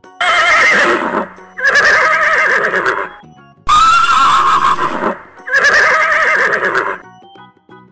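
A horse whinnying four times in a row. Each call lasts about a second and wavers in pitch, over soft background music.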